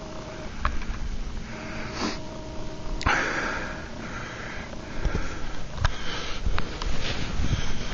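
A person sniffing through the nose several times, with a few short clicks in between.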